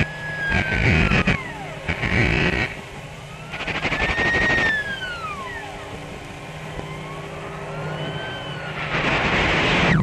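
Backwards-played early cartoon soundtrack: a high whistling tone slides up and down in three long arcs, over noisy swells that build and then cut off abruptly, the last one just at the end.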